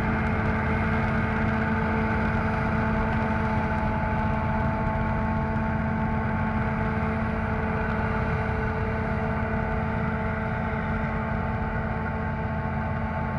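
Claas Lexion combine harvester threshing rye, its engine and threshing machinery giving a steady hum with several held tones. The sound eases off slightly as the machine moves away.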